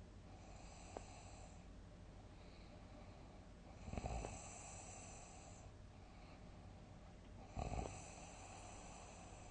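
A sleeping person snoring heavily: two big snores about three and a half seconds apart, each trailing off into a hiss. There is a small click about a second in.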